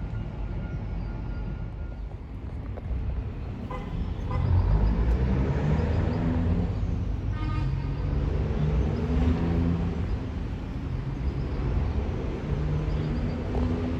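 Street traffic: a motor vehicle's engine rumble grows about four seconds in and holds, and a short horn-like toot sounds about halfway through.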